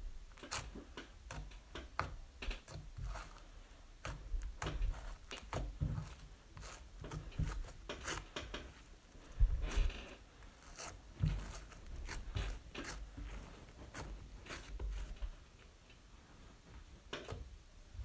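Floam slime being squeezed and pressed by hand, its foam beads giving off irregular crunchy crackles and clicks, with a few soft low thumps.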